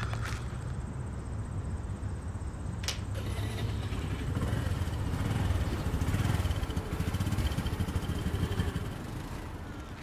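Motor scooter engine running, with a sharp click about three seconds in; the engine sound swells in the middle and eases off near the end.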